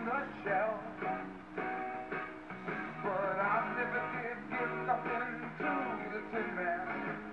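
Rock-and-roll song with singing and guitar, played through a vintage 1980s Fisher MC-3020 stereo system after its rebuild.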